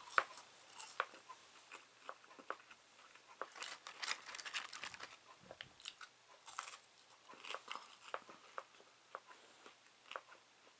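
A person chewing French fries close to the microphone: faint, irregular wet mouth clicks and soft crunches.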